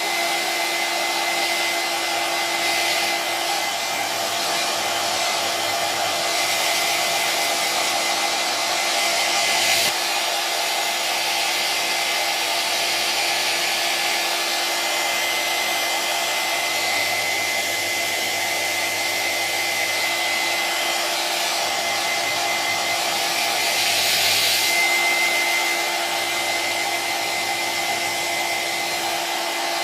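Electric hair dryer running steadily: a constant rush of blown air with a steady motor whine over it.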